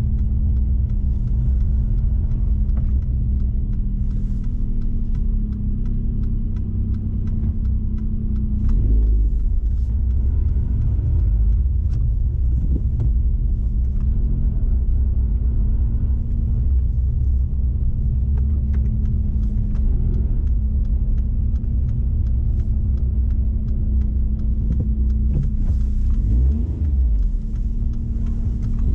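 Car engine and road noise while driving, a steady low rumble with a humming tone. The tone drops away about 9 s in and returns later, with the pitch shifting again near the end as the car slows and pulls away.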